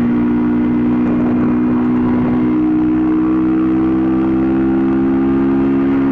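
2007 Honda CBR125R's single-cylinder engine running steadily under way, its pitch rising slightly about halfway through.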